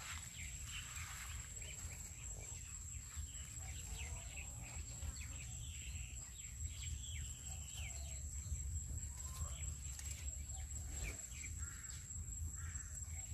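Outdoor ambience of scattered short bird chirps and calls over a low rumble, with a steady high-pitched whine.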